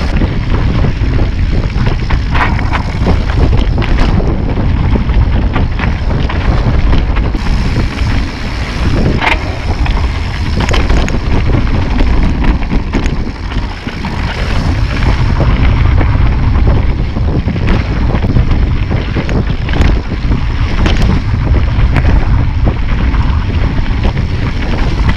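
Wind buffeting an action camera's microphone as a mountain bike rides fast down a dirt trail, an uneven rumble with tyre noise, and the bike knocking and rattling over bumps now and then.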